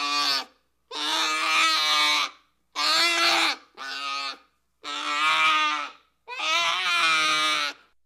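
Bear cub bawling: a run of about six drawn-out, crying calls, each up to about a second long, with short pauses between them.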